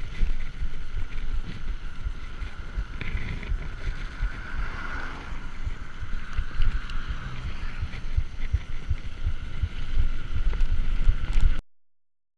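Wind buffeting the handlebar camera's microphone, with the rumble of mountain-bike tyres rolling on tarmac; it cuts off suddenly near the end.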